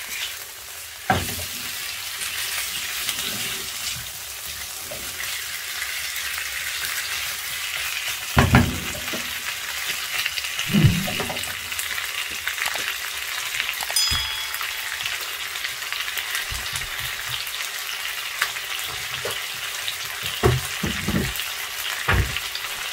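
Chicken pieces sizzling steadily in oil and tikka masala spice paste in a non-stick frying pan, with a silicone spatula now and then knocking and scraping against the pan as they are stirred.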